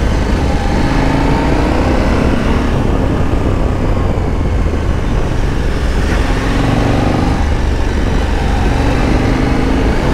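KTM 1290 Super Adventure R's V-twin engine running under way over heavy wind noise, the engine note rising twice in the second half.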